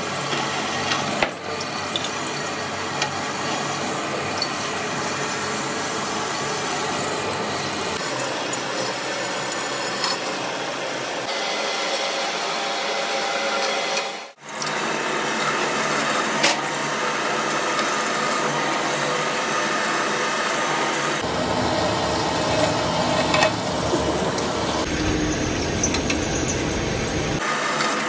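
Pedestal drill presses running, a twist drill bit cutting into steel with coolant trickling onto it. The sound is steady but changes abruptly several times, with a brief drop about halfway.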